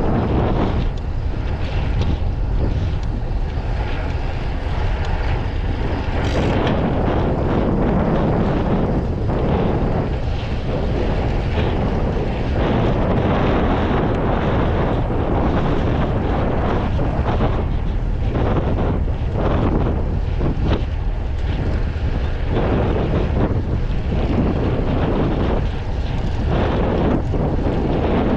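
Wind buffeting the camera microphone while riding a road bike at speed: a loud, steady, gusty rumble.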